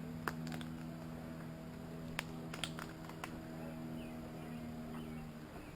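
A steady low hum from a motor, with a few sharp clicks over it. The hum fades out near the end.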